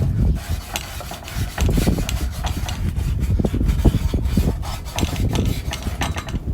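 Irregular rubbing and scraping strokes on the cut metal drill-press stand as its surface is smoothed by hand.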